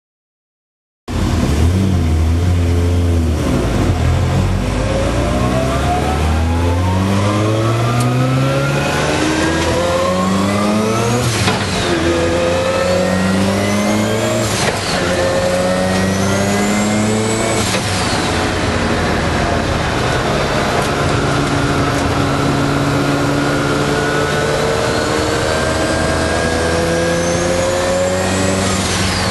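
Mazda RX-7 time attack car's engine under hard acceleration, heard from inside the cockpit. It starts about a second in and climbs in pitch through the gears, with three quick upshifts in the middle, then makes a long pull in a higher gear before the revs drop near the end.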